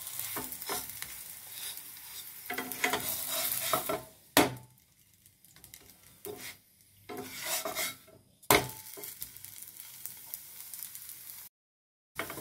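Naan frying in oil in a non-stick frying pan: sizzling, with a wooden spatula scraping and pressing the bread. Two sharp knocks come about four and eight and a half seconds in, with a quieter spell between them. The sound cuts out completely for a moment near the end.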